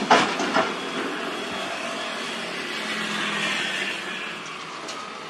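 Komatsu mini excavator dumping a bucket of concrete rubble into a dump truck's steel bed: a few sharp clanks as the debris lands in the first second. Then the excavator's engine and hydraulics run on with a steady whine that swells around three seconds in and eases off.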